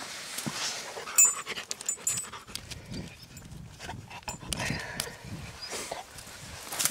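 A dog panting close by, in soft quick breaths, with a sharp click about a second in.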